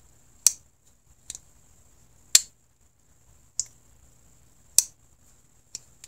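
RoseCraft Beaver Creek Barlow slip-joint pocket knife's D2 sheepsfoot blade being opened and closed repeatedly, its backspring snapping the blade through the half-stop and into the open and closed positions. Six sharp clicks about a second apart, every other one louder: the firm snap of a strong spring, about a 7 on the pull.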